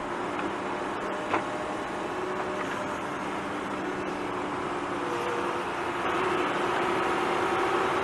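Small electric motor and plastic gearbox of a toy RC vehicle whining steadily, with a short click just over a second in. It gets louder about six seconds in.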